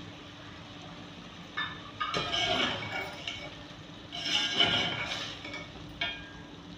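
A slotted metal spoon scraping and clinking against the sides and bottom of a metal cooking pot while stirring chicken. It comes in two louder bouts, about two and four seconds in, with a few sharp clinks between them.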